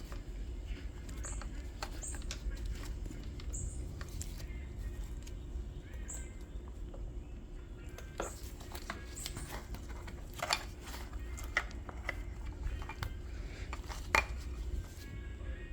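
Scattered small clicks, scrapes and short squeaks of a lubricated rubber fuel line being worked down into a string-trimmer-type edger's fuel tank with a flathead screwdriver, with one sharper click about 14 seconds in. A low steady hum runs underneath.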